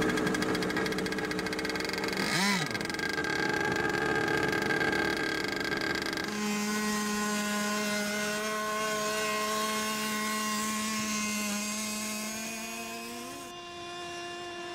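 Small piston engine of a radio-controlled Avro CF-105 Arrow model running steadily. Its pitch swings briefly a couple of seconds in and rises slightly near the end.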